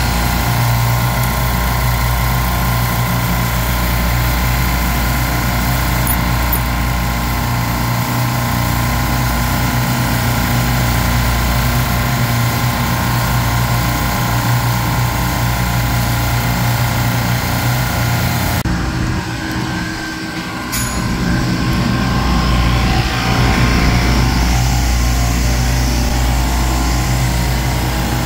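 Steady mechanical drone of running refrigeration rack machinery, with a strong low hum and several steady tones. About 19 seconds in the high hiss drops away suddenly while the low drone carries on.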